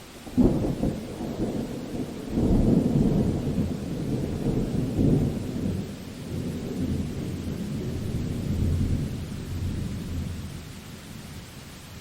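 A thunderclap over steady rain: it cracks about half a second in, rolls into a second, louder peal about two seconds in, then rumbles on and slowly dies away.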